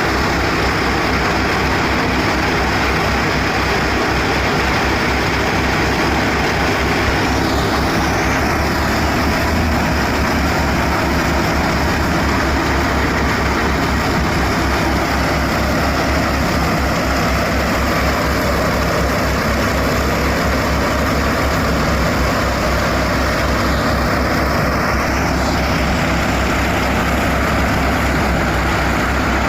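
Tractor-powered wheat thresher running steadily: the Al Ghazi tractor's diesel engine hums low under the constant loud rush of the thresher, unchanging throughout.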